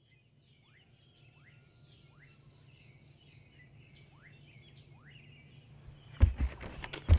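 Nature ambience fading in: a steady high insect drone with birds giving short falling chirps, about five of them. About six seconds in, soft thumps and rustling start, the loudest sounds here.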